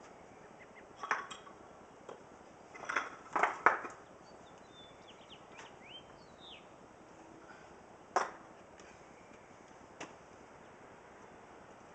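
Rocks knocking against one another as they are stacked: a few sharp clacks, one about a second in, a quick cluster around three to four seconds in that holds the loudest knock, then single knocks about eight and ten seconds in.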